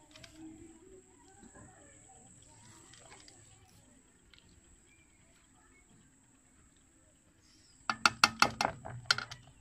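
A wooden spatula knocks against the rim of an aluminium cooking pot in a quick run of about eight sharp raps near the end. Before that there is only a steady high-pitched cricket trill.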